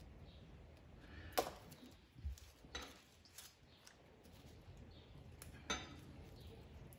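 A few light clicks and taps from onion slices being handled on a plastic cutting board, with the faint rustle of dry onion skin peeled off by hand. The loudest click comes about a second and a half in.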